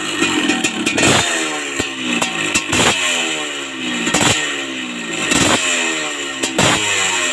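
Yamaha DT125 two-stroke engine running and being blipped again and again, the revs falling away after each blip.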